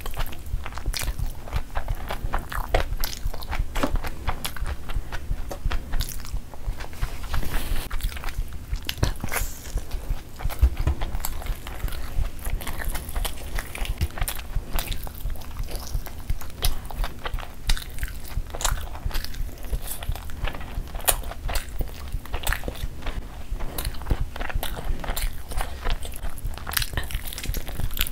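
Close-miked eating sounds of a person biting and chewing spicy whole chicken and mandi rice eaten by hand. There are many small, sharp, irregular clicks and crunches throughout.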